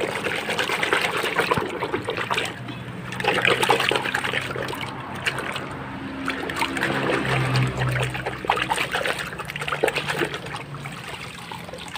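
Muddy water splashing and sloshing in a plastic basin as a hand scrubs a plastic toy vehicle under the surface, in uneven bursts that come and go.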